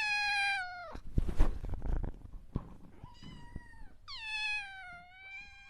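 A cat meowing: a long meow that falls in pitch at the start, a faint short one, then another long falling meow near the end, with a few thumps and rustling in between.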